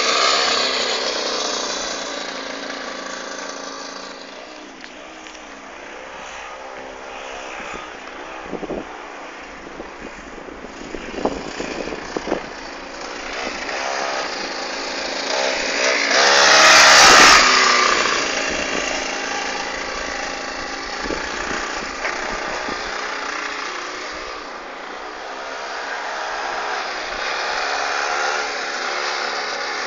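A 54cc two-stroke pocket bike with an aftermarket exhaust, ridden in laps. Its high-revving engine rises and falls in pitch as it accelerates and backs off, and is loudest about halfway through as it passes close.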